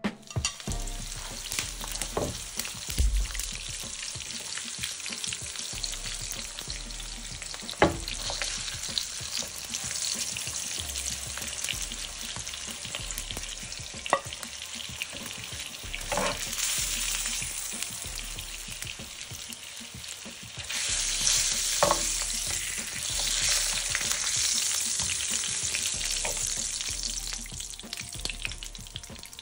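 Strips of pork belly sizzling in hot fat in a nonstick grill pan, a steady frying hiss with a few sharp clicks of tongs against the pan. The sizzling gets louder about two-thirds of the way through.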